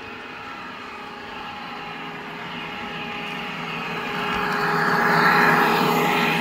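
Model electric locomotive and coaches running on the track: a motor whine with the rush of wheels on rail, growing louder as the train approaches and passes close by, loudest about five seconds in.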